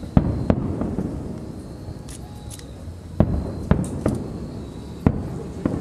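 Aerial fireworks shells bursting overhead: about six sharp booms in three rough pairs, each trailing off, with faint crackling between them.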